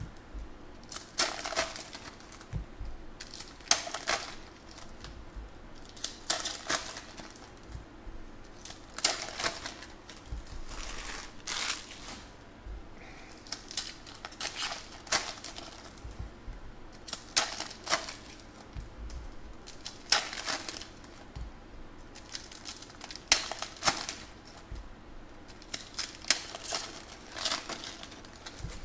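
Foil wrappers of 2014 Panini Prizm football card packs crinkling and tearing in the hands as packs are opened, in short sharp bursts every second or two.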